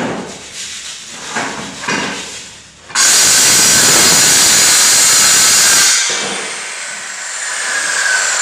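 Handheld circular saw cutting a strip of toilet-partition board. After a few handling knocks it starts suddenly about three seconds in and cuts loudly for about three seconds, then its whine falls away as the blade spins down.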